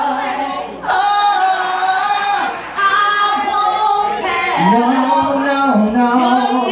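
A woman singing karaoke into a handheld microphone through the PA, holding long notes that slide in pitch.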